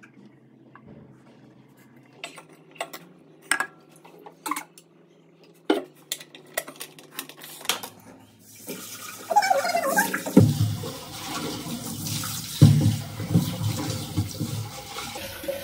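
Kitchen utensils clinking and knocking several times, then a tap running into a sink from about eight seconds in, with water splashing and a couple of heavier thuds as a vessel is rinsed under it.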